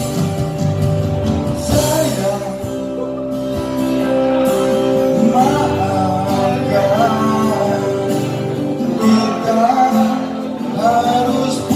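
Instrumental break of an Indonesian pop ballad: a guitar-led band accompaniment playing a wavering melody over sustained chords.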